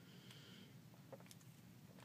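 Near silence: room tone, with a few faint clicks about a second in.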